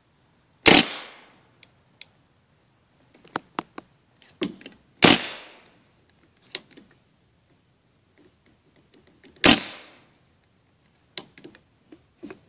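CO2-powered paintball gun firing three single shots, each a sharp pop with a short trailing hiss, about four to five seconds apart. Fainter clicks and taps fall between the shots.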